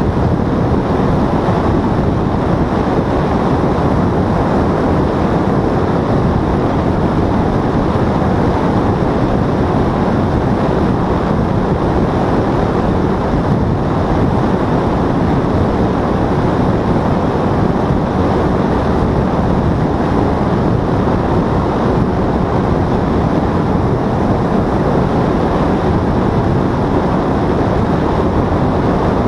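Paramotor engine and propeller running steadily in flight, mixed with wind rushing over the microphone: an even, unchanging noise with no rises or breaks.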